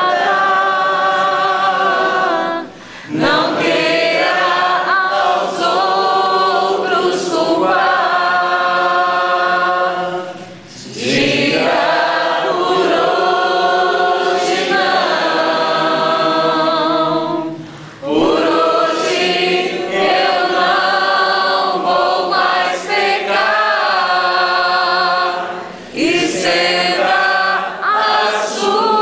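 A group of people singing a worship song together, unaccompanied, in long held phrases with brief pauses for breath about every seven or eight seconds.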